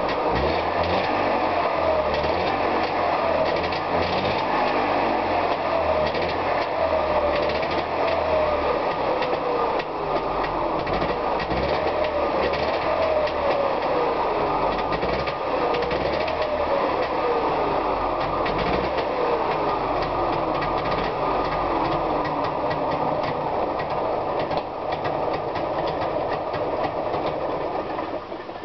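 Trabant 601's air-cooled two-cylinder two-stroke engine running just after a start, with a recurring falling whine; it shuts off near the end.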